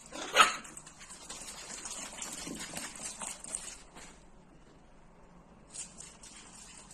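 A dog barks once, loud and short, about half a second in. A few seconds of scratchy, rustling noise follow and stop about four seconds in.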